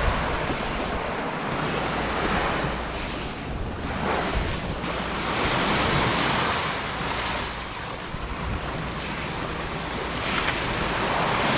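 Sea waves washing onto a sandy beach, surging and fading several times, with wind rumbling on the microphone.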